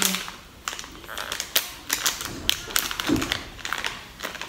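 Irregular light clicks and taps as a small accessory is handled and unwrapped from its plastic packaging, with one short low sound about three seconds in.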